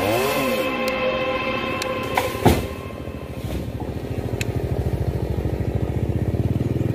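Chainsaw engine running with steady tones, a sharp knock about two and a half seconds in, then settling into a rapid, even pulsing that grows a little louder.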